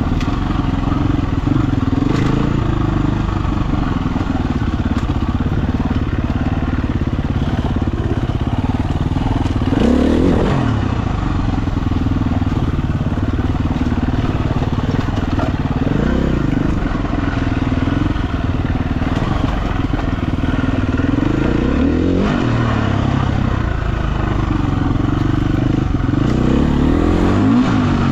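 Husqvarna FE350 single-cylinder four-stroke dirt bike engine running under riding load. Its pitch rises and falls about four times as the throttle opens and closes.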